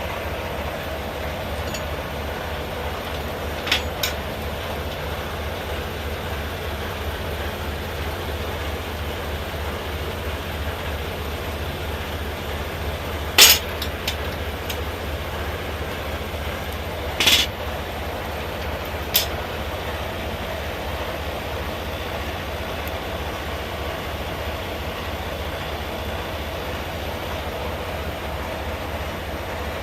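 Semi-truck diesel engine idling steadily, with about five short, sharp knocks from work on the air line. The loudest knock comes about halfway through.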